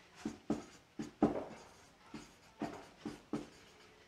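Marker pen writing on a whiteboard: a string of about eight short, separate scratchy strokes.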